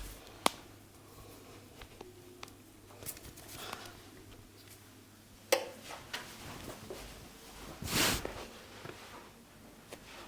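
Head-massage handling sounds: quiet rubbing and ticks, two sharp clicks about five seconds apart, and a short louder rush of noise near the end.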